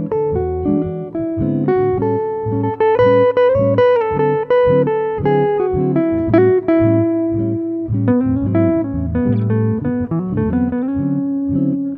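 Background music: a melody of short plucked notes over lower notes, with no break.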